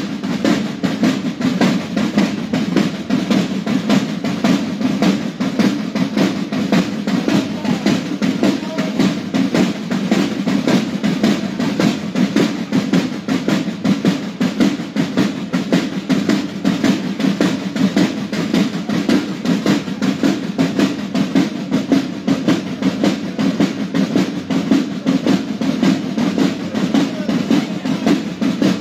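Parade marching drums, snare and bass drum, playing a steady, rapid cadence.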